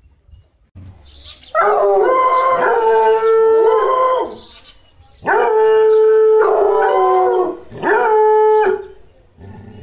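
American foxhound baying: three long, drawn-out howls of steady pitch, the last one shorter.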